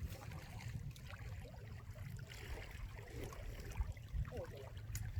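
Outdoor seaside ambience: wind rumbling on the microphone, with a few faint distant voices and a single sharp click near the end.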